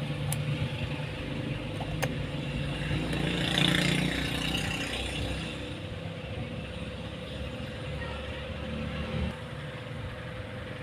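A motor engine running steadily in the background, swelling louder for a moment about four seconds in, with a few small clicks.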